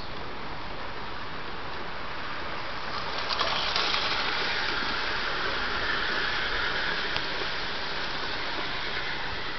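O gauge model train with a steam-outline locomotive and coaches running past on garden track: a steady rolling rumble of wheels on rails that grows louder about three seconds in as the locomotive comes close, with a few sharp clicks, then eases as the coaches go by.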